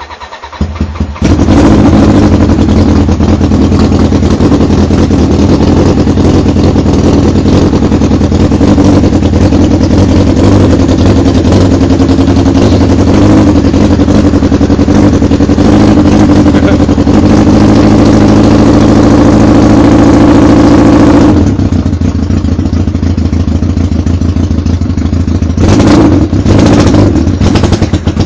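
Custom motorcycle engine cranking and catching about a second in, then running loud for about twenty seconds before dropping to a quieter idle, with a few short revs near the end. The engine is cold.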